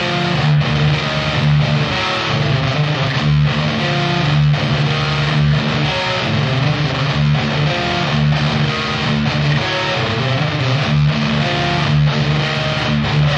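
Live rock band playing: strummed electric guitar over bass guitar and drums.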